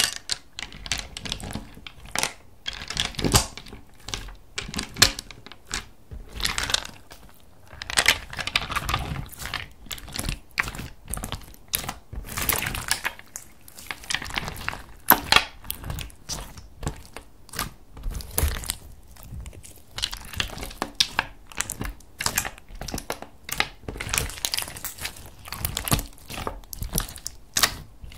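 Clear slime mixed with small plastic star beads being kneaded, stretched and pressed by hand: irregular sticky crackles, pops and clicks.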